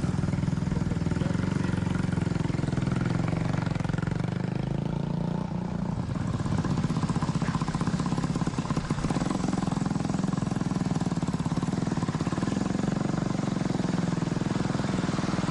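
Suzuki 350cc motorcycle engine running steadily as the bike is ridden around, its note wavering slightly around five seconds in.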